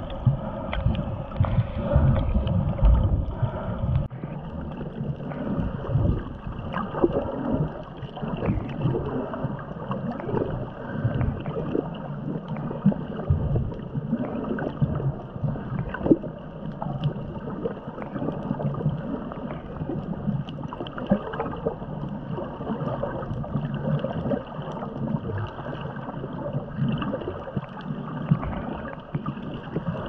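Water sloshing and gurgling against an underwater action camera, with irregular crackles and pops; a deeper rumble eases about four seconds in.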